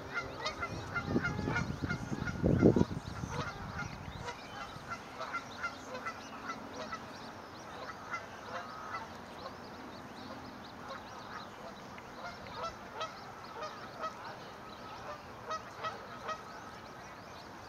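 Newborn swan cygnets peeping, many short high calls repeating throughout, with a few louder, lower sounds in the first three seconds.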